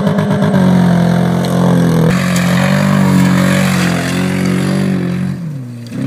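Car engine revving hard, held at high revs as the car slides through dirt, with the revs falling away near the end.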